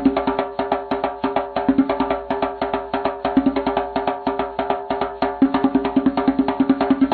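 Kalimba (thumb piano) being plucked in a quick, even stream of notes, several a second, the metal tines ringing over one another; in the second half a low note is struck rapidly again and again.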